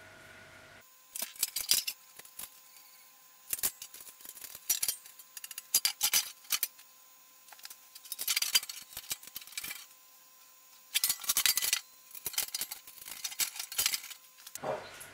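Small steel bolts and washers clinking in the hands and against thin sheet-metal stand panels as they are fitted. The clicks come in irregular clusters, with short pauses between them.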